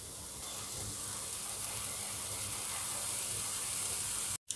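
Masala paste of onion, tomato, ginger-garlic and ground spices sizzling steadily in oil in a nonstick frying pan as it is fried down (bhuna). The sizzle grows slowly louder, then cuts off abruptly near the end.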